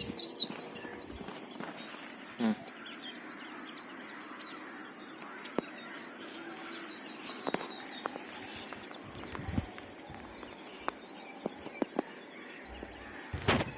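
Rural outdoor ambience: small birds chirping and a steady high-pitched insect drone, with a few faint clicks scattered through.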